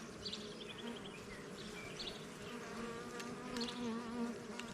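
Honeybees buzzing around an opened hive: a steady hum whose pitch wavers as the bees fly about, with a few faint clicks. The colony is more active than usual, stirred up by the inspection.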